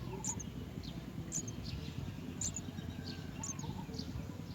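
House sparrow giving short, high chirps about once a second, over a steady low background rumble.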